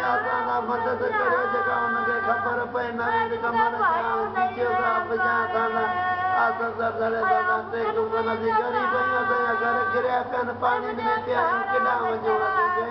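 A woman wailing in grief, a sung-like lament of long held notes that waver and slide.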